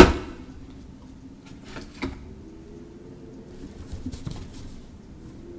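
Handling of tarot cards on a table: one sharp knock at the start, then a few light taps and clicks.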